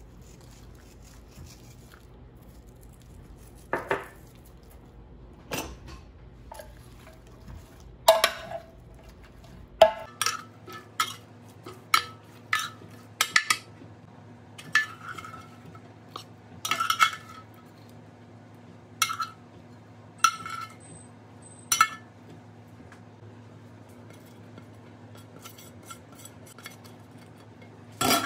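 A metal serving spoon clinking and knocking against a glass baking dish as roasted mini peppers are scooped out: a couple of dozen separate, irregular clinks, some with a short ring, coming thickest in the middle and stopping a few seconds before one last clink at the very end.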